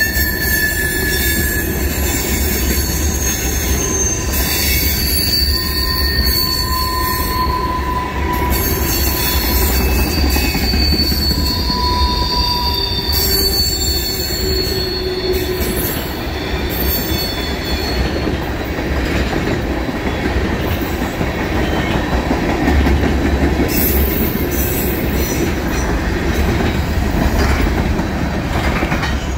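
Empty tank cars of a freight train rolling past, their wheels squealing in long high tones for the first half or so over a steady rumble of wheels on rail, then mostly rolling rumble.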